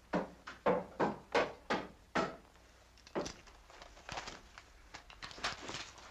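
Footsteps on wooden boards: about six quick steps in the first two seconds, then a few fainter knocks and shuffles.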